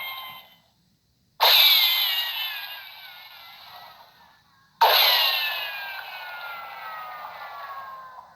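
Two gunshot ricochet sound effects in the old cartoon-western style. Each is a sudden crack followed by a falling whine that fades over about three seconds.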